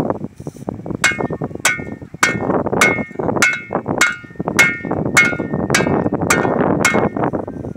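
The back of a metal shovel blade hammering down on top of a wooden stake to drive it into the ground: about eleven ringing clanks in an even rhythm, roughly two a second.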